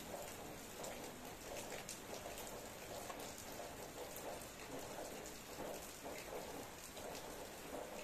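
Steady rain falling, with a continuous hiss and many small drop ticks.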